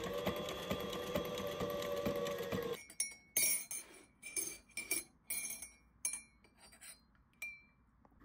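Sewing machine stitching leather: a steady motor hum with fast needle ticking that stops about three seconds in. Then a metal spoon stirring in a ceramic mug, striking the inside about nine times with bright, ringing clinks.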